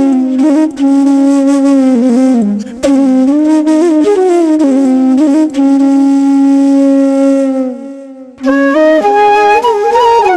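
Background music: a flute melody of long held notes with slides between them, pausing briefly about eight seconds in.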